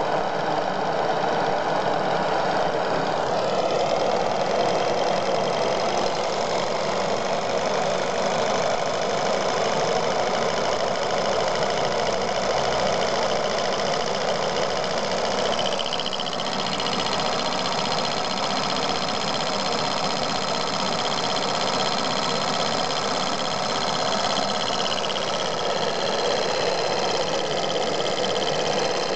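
Steady hiss and roar of a gas-torch flame heating the hot end of a homemade Stirling engine, with the engine running and giving a fast mechanical ticking from its moving parts.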